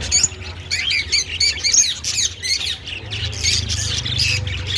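A flock of small caged parrots, budgerigars among them, chattering and squawking together: many short, quick, overlapping calls. A low steady hum runs underneath.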